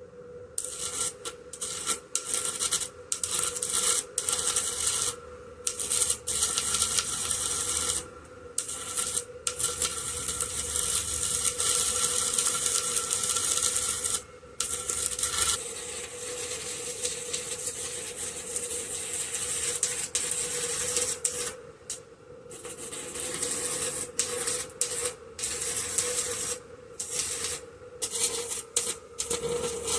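Abrasive rubbing or scraping in runs of one to several seconds with brief pauses, over a steady hum.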